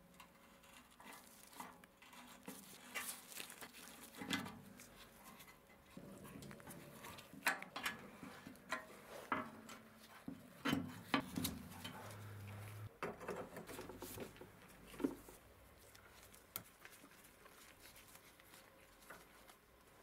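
Hand tools working rusted iron heater parts: scattered metallic clicks, taps and scrapes from a screwdriver bit on a seized bolt and a pin punch on a corroded fitting. The sharpest clicks come in the middle, then they thin out toward the end.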